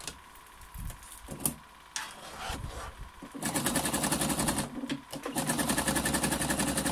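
Electric sewing machine stitching rolled fabric strips together. It runs in two spells of rapid, even stitching about three seconds in, with a brief stop between them, after a few soft clicks.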